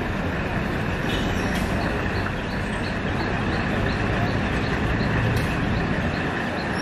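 Passenger train running with a steady rumble, with a light ticking about three or four times a second through the middle.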